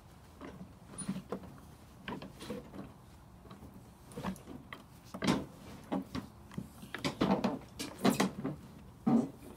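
Irregular knocks, bumps and rattles of handling around a John Deere LA120 lawn tractor, its engine off; they come thicker in the second half.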